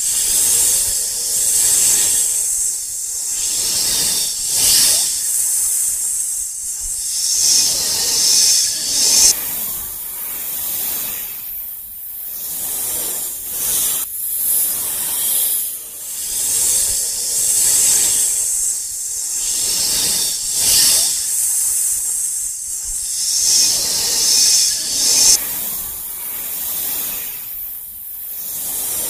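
Loud snake-like hissing that swells and fades in waves every couple of seconds, a recording looped about every 16 seconds.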